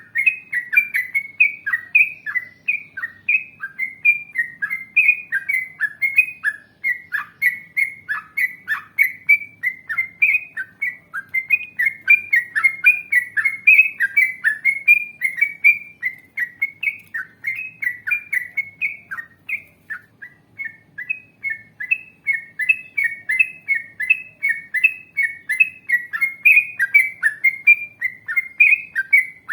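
Yellow-vented bulbul (cucak trucuk) singing a long, unbroken run of short, quick falling notes, about three a second.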